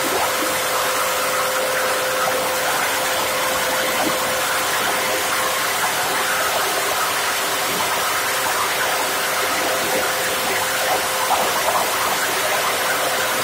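PET bottle grinder (plastic scrap crusher) running steadily: a continuous rushing whir with a steady hum, as waste PET bottles are fed into it for chopping.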